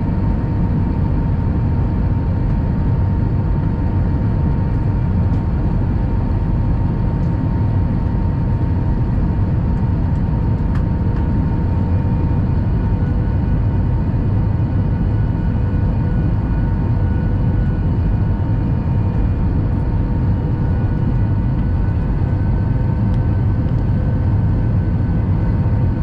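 Steady roar of a jet airliner's cabin on approach with flaps extended: engine and airflow noise heard at a window seat over the wing, with faint steady whining tones and a thin higher whine that comes in about halfway.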